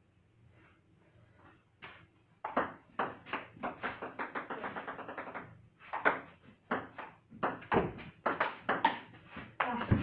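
Table tennis ball clicking off bats and table. After a quiet start comes a quick, even run of light clicks, about four a second. Then louder, irregular hits and bounces follow as a rally.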